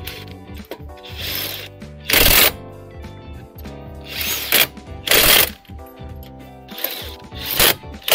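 Power tool spinning wheel nuts on in short bursts of about half a second, coming in pairs every few seconds, the second of each pair louder.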